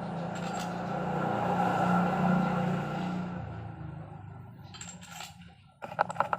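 A steady rushing noise over the first three seconds or so fades out. Then loose steel engine bolts clink and ring against each other and against metal, once about five seconds in and in a quick cluster near the end.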